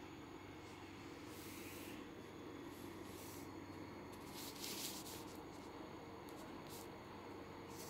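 Faint steady room hum with a few short rustling, rubbing noises, the loudest about four and a half seconds in.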